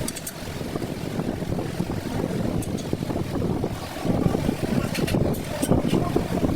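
Workshop machine running with a low, uneven rumble, with a few short sharp clicks on top.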